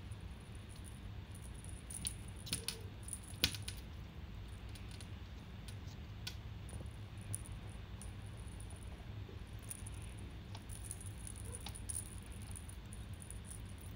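Kittens playing with a pompom wand toy on a glass tabletop: light clicking and jingling as the toy's beads and the kittens' claws knock against the glass, with a few sharper clicks about two and a half and three and a half seconds in.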